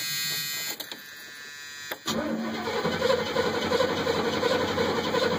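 A 1979 Trans Am's 403 Oldsmobile V8 being cranked over by its starter for a compression test, starting about two seconds in and running steadily. Before it, a steady buzzing tone stops about a second in.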